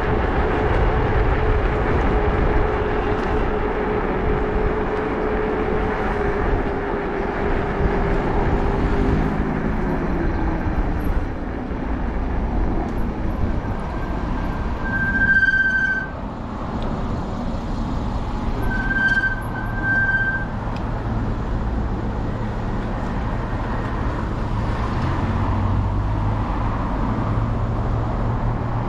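Steady rush of wind and road noise from a moving e-bike ride, with a steady whine that drops in pitch about ten seconds in. A short high beep comes a little past the middle, followed by two more in quick succession.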